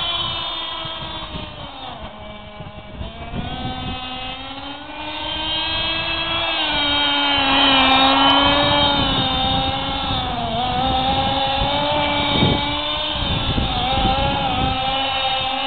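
Small nitro engine of an Ansmann Vapor RC buggy running with a high whine whose pitch rises and falls as the throttle changes. It is fainter a couple of seconds in and loudest about eight seconds in, as the buggy moves farther and nearer.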